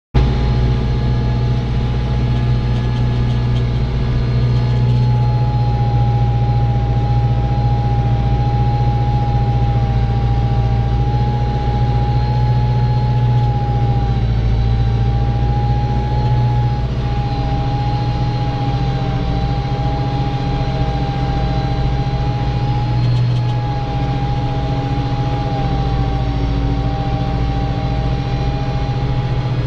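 Farm tractor's diesel engine running steadily under load while ploughing, with a steady whine that comes in about five seconds in.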